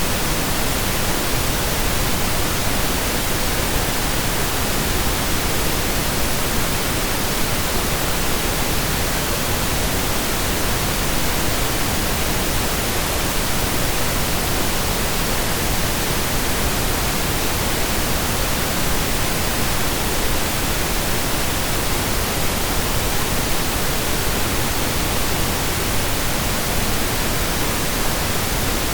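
Steady, unbroken pink noise, a synthesized even hiss with equal energy per octave.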